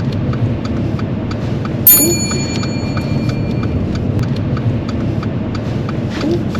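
Car indicator ticking steadily, about three clicks a second, over the low hum of the engine as the car moves off. A single bright, bell-like ding sounds about two seconds in and rings away.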